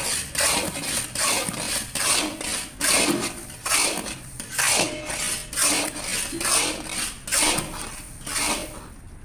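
Long metal spatula scraping and stirring thick, grainy milk halwa around a metal karahi, about one stroke a second. The halwa is cooking down to the grainy mawa stage.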